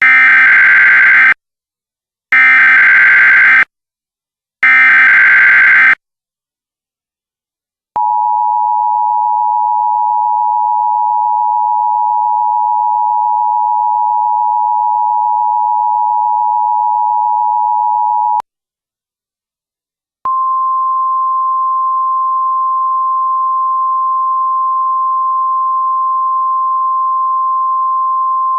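An Emergency Alert System broadcast opens with its SAME header, three short bursts of screechy digital data tones about a second apart. Next comes the EAS two-tone attention signal, held steady for about ten seconds. After a brief silence the single steady 1050 Hz NOAA Weather Radio alert tone starts and carries on.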